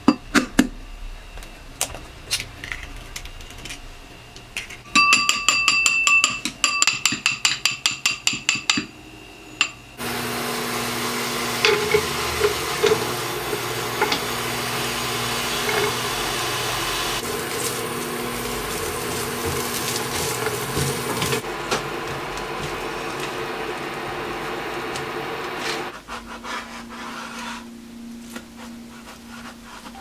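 A quick run of ringing clinks, like eggs being beaten in a bowl, then carrot strips sizzling in oil in a frying pan, a loud steady hiss that starts suddenly and dies down a few seconds before the end.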